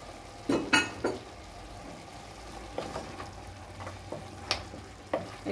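Wooden spoon stirring lamb and onions frying in a pot, over a steady low sizzle, with a few sharp knocks of the spoon against the pot, the loudest just under a second in.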